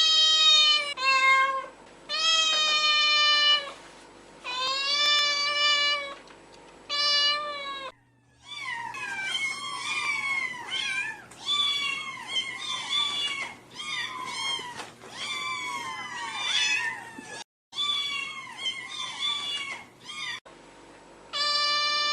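Cats meowing in a string of edited clips: first several long, drawn-out meows, then after an abrupt cut many short, high kitten mews overlapping rapidly, as from a litter calling together.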